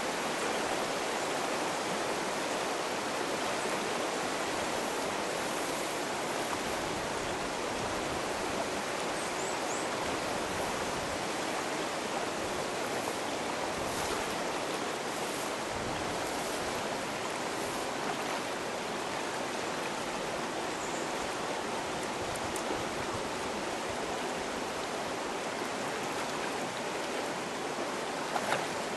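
River water rushing steadily over a shallow, broken stony run.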